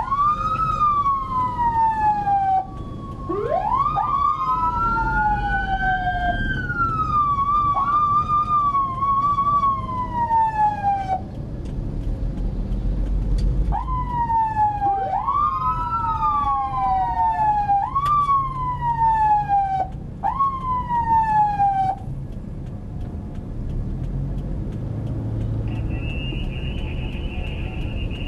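Electronic vehicle siren sounded in short manual sweeps, each rising quickly and falling away over about two seconds, repeated in bursts. Early on, a second siren tone slides slowly downward beneath them, with engine and traffic rumble throughout. The sweeps stop a few seconds before the end, and a steady high tone comes in.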